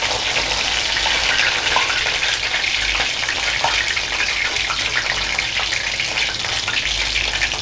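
Batter-coated mushroom pieces deep-frying in hot oil in a kadai, giving a steady crackling sizzle. A few light clicks come from a metal ladle as the pieces are stirred and lifted out.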